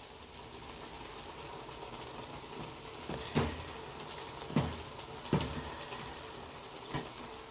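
Wooden spoon stirring spaghetti in a stainless steel pot on a hot hob, over a low, steady sizzle, with four knocks of the spoon in the second half.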